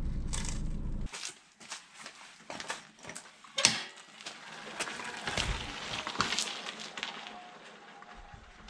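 A low rumble inside a car for about a second, cut off suddenly, then footsteps with clicks, knocks and rattles as a small dirt bike is pushed by hand across a concrete floor. The loudest sound is a sharp click about three and a half seconds in.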